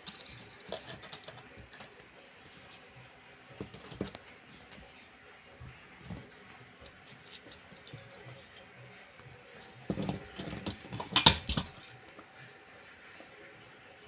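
Scattered light taps and clatters, with a louder run of knocking and clattering about ten to eleven and a half seconds in.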